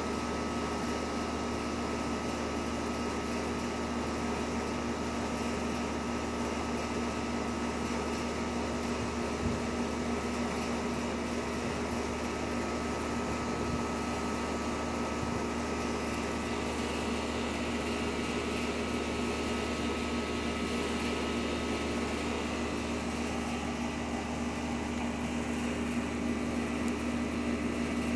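A steady machine hum with a constant low drone and a few fixed higher tones, growing a little louder near the end.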